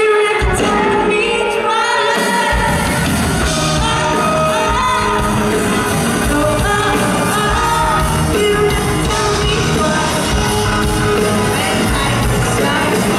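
Live pop-rock band: a female lead singer sings over electric guitars and drums. The bass and drums come in fully about two and a half seconds in.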